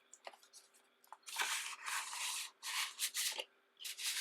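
Stiff paper and cardboard packaging being handled, several dry rubbing and sliding strokes in a row starting about a second in.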